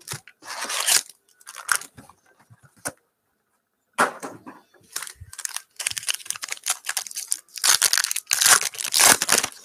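Foil trading-card pack wrappers crinkling as a stack of Panini Prizm basketball packs is handled, then a foil pack being torn open in a run of crackly rips, loudest near the end.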